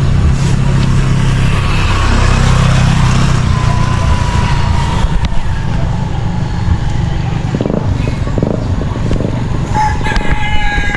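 Steady wind rush and low rumble from riding a mountain bike, with a rooster crowing near the end.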